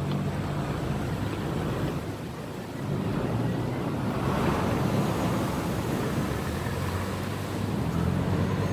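Water washing and slapping with the steady low drone of a canal taxi boat's engine underneath, and wind on the microphone. The water noise swells about halfway through.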